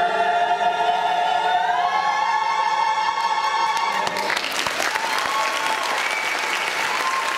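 Mixed church choir singing a long held closing chord that steps up in pitch about a second and a half in, then cuts off about four seconds in as the audience breaks into applause.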